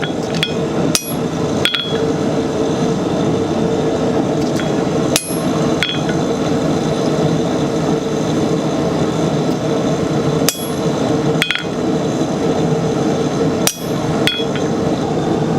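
Hammer striking a steel dot punch into a square steel bar, single blows spaced a second to a few seconds apart, each with a short bright metallic ring. A steady drone runs underneath.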